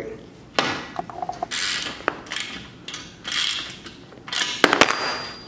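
Socket ratchet clicking in about four runs, each lasting about half a second to a second, as a bolt is tightened through aluminium angle and a paint pole.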